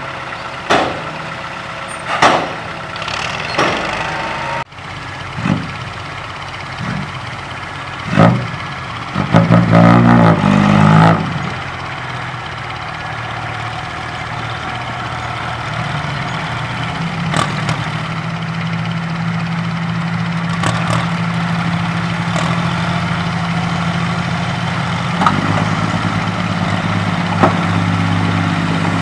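Six-wheel diesel dump truck working while tipping soil: a few sharp metallic clangs in the first seconds, a burst of loud engine revving about ten seconds in, then a steady raised engine note that grows louder as the hydraulic hoist lifts the loaded bed.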